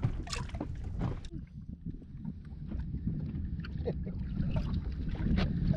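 Wind buffeting the microphone and water lapping against an inflatable boat's hull, with scattered light clicks and knocks.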